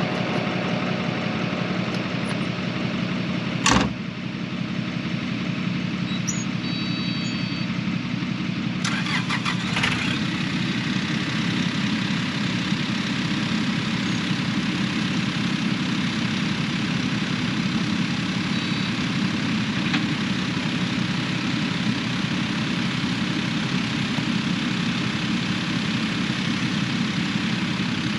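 Vehicle engine running steadily at an even pitch, with one sharp knock about four seconds in and a few clicks near ten seconds.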